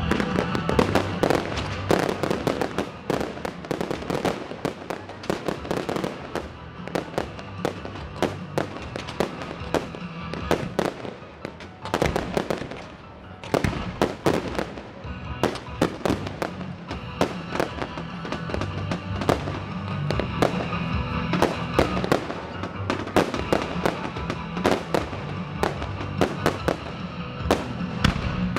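Fireworks display with kamuro shells: a dense run of sharp bursts and bangs, thinning briefly around the middle, over a music soundtrack.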